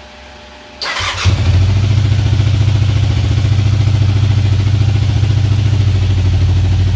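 Motorcycle engine starting: a short burst of cranking about a second in, then it catches and settles into a steady idle.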